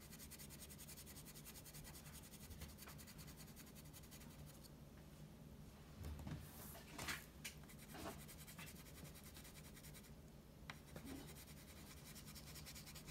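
Faint wax crayon scratching on paper, which stops about four and a half seconds in. About six to eight seconds in come a few short rustles and knocks as the sheet of paper is slid and turned on the table, and near the end the crayon strokes start again.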